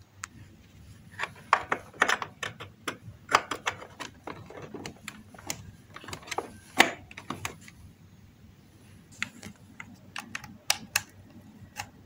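Irregular plastic clicks and taps, in clusters, as a USB cable and its plug are handled and pushed into USB ports; the loudest click comes about seven seconds in.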